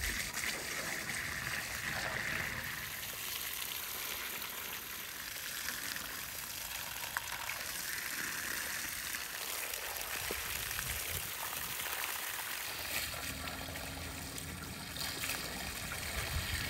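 Water from a garden hose spraying onto raw beef hooves and tripe in enamel basins, a steady splashing of water on meat and metal.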